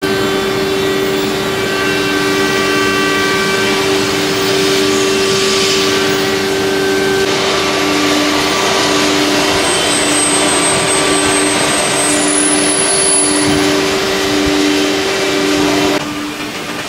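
Steady machine noise of CNC woodworking machinery running: a constant hum over a haze of mechanical noise, joined from about halfway by a second tone that pulses on and off about once a second. Near the end the steady hum stops and the noise drops to a quieter level.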